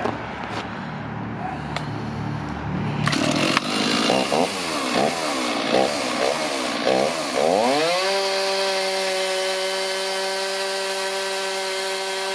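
Gas chainsaw cutting into an ash log: it runs low for about three seconds, then is throttled up, its pitch swinging up and down several times as it bites into the wood, and from about eight seconds in it holds a steady high-pitched full-throttle whine.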